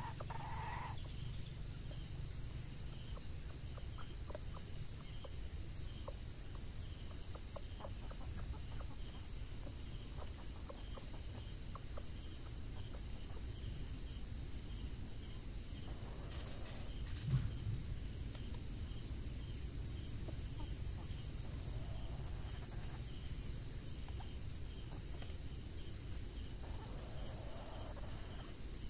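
Red junglefowl clucking softly now and then over a steady, high-pitched insect drone, with one brief knock about halfway through.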